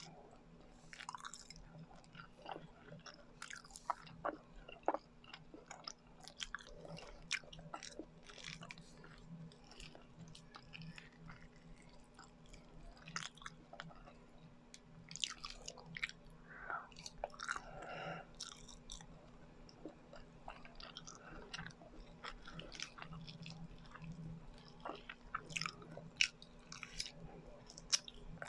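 Close-up mouth sounds of eating biko, a sticky sweet rice cake: wet, sticky chewing with irregular smacks and clicks.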